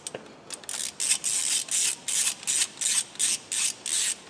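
Ratchet wrench worked quickly back and forth on a bolt, a short burst of clicking on each return stroke, about four or five a second.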